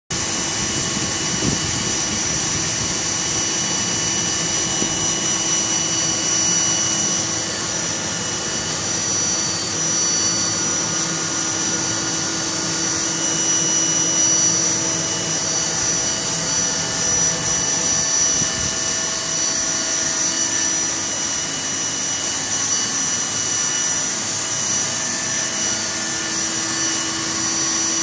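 Home-built gas-fired fluid bed coffee roaster running: a steady rush of blower air with a high, steady whine over it.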